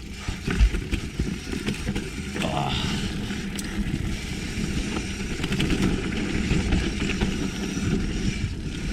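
Hardtail mountain bike with mid-fat tyres riding down a dirt trail: tyre roar on the ground with the bike clattering over bumps, and a thump just under a second in.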